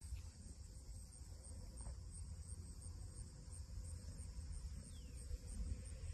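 An insect chirping in a steady, high-pitched rhythm, about three chirps a second, over a faint low rumble.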